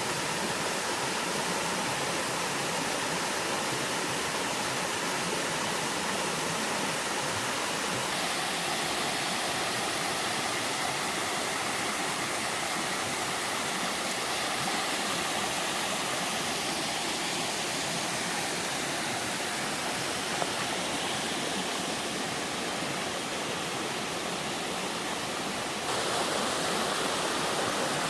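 Waterfall plunging into a rocky mountain stream, a steady dense rush of falling water that grows slightly louder near the end.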